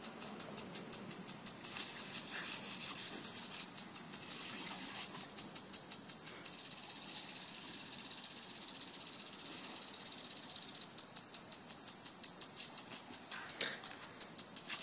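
Lawn sprinkler spraying water with a rapid, regular ticking hiss, about four ticks a second. For a few seconds around the middle the ticking gives way to a steady unbroken hiss of spray.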